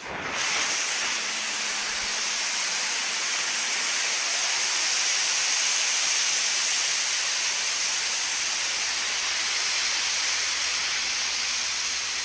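Propane jetting from a bullet hole in a propane tank: a loud, steady hiss that builds to full strength within the first half second and holds evenly throughout.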